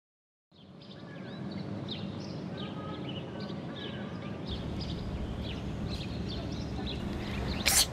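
Outdoor ambience fading in: small birds chirping over a steady low rumble, with one sharp click near the end.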